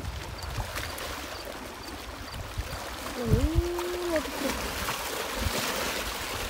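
Small lake waves lapping and washing against shoreline rocks, with wind buffeting the microphone. About halfway through comes one short call that rises, holds and falls in pitch.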